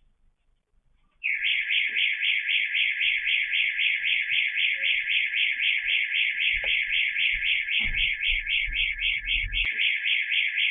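An electronic alarm goes off suddenly about a second in: a loud, high, rapidly pulsing tone that keeps going without a break. Low thumps and rumbling sound under it in the second half.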